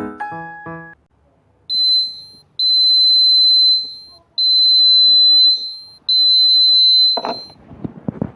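Electronic bike buzzer sounding four steady, high-pitched beeps, the first short and the next three each over a second long. Keyboard music ends about a second in, and knocks and handling noise follow the last beep.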